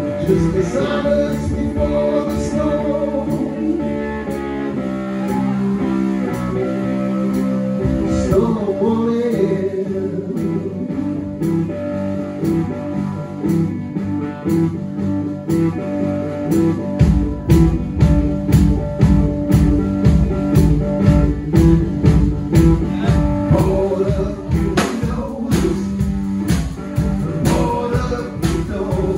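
Live blues band playing: vocals over archtop guitar, with a steady drum beat that starts about 17 seconds in.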